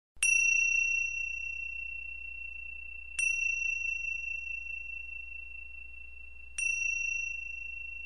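A small high-pitched bell struck three times, about three seconds apart, each stroke ringing on and slowly fading.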